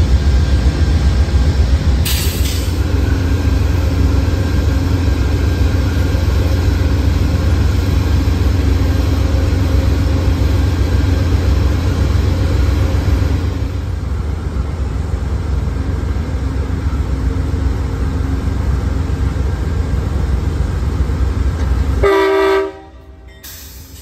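Amtrak train hauled by GE Genesis diesel locomotives running close past: a loud, steady low rumble of engines and wheels. It cuts off sharply about a second and a half before the end.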